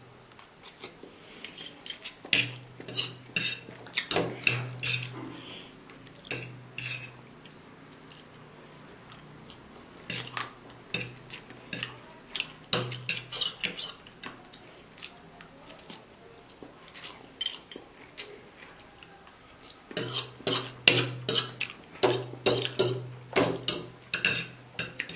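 Two metal forks clinking and scraping on a ceramic plate while instant noodles are twirled and lifted, in clusters of sharp clicks with short quieter gaps, along with close-up eating sounds as noodles are slurped and chewed.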